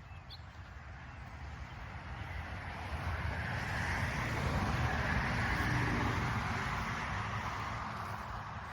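A road vehicle passing by on the highway: its tyre and engine noise swells up over a few seconds, peaks just past the middle, then fades away.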